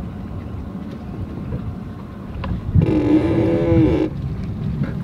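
A drawn-out, moo-like vocal sound from a person, a little over a second long, starting about three seconds in, over low wind rumble on the microphone.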